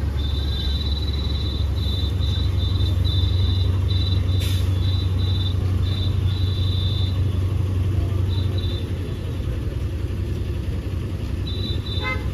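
Yutong coach engine idling close by, a steady low rumble that eases slightly after about eight seconds. Over it a high-pitched electronic chirping comes in quick bursts for the first seven seconds or so and returns briefly near the end.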